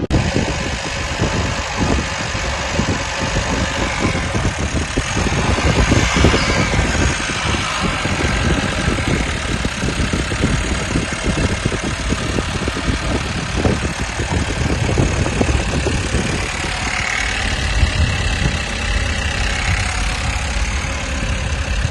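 2018 Chevrolet Malibu's direct-injection petrol engine running at a steady idle with a replacement vacuum pump fitted, smooth and with no misfire.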